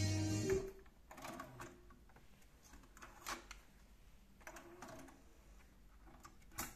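Music playing back from the Akai GX-7 cassette deck cuts off about half a second in. The deck's transport then gives a series of mechanical clicks and short clunks as it stops and the cassette door opens, with a sharp click near the end as the tape is handled.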